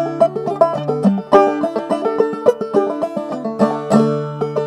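Open-back banjo played clawhammer style: an Irish reel in a quick, even run of plucked notes, with lower notes left ringing underneath.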